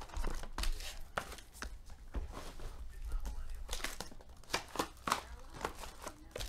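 A foil-wrapped Panini Preferred trading card pack and its cardboard box being handled: the foil crinkles and the box taps and scrapes, a scatter of short sharp clicks and crackles.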